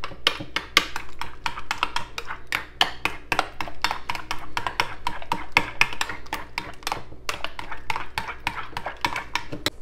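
Metal spoon stirring a thick mix of cream of chicken soup and mayonnaise in a ceramic bowl, clinking and scraping against the bowl in many quick, steady strokes.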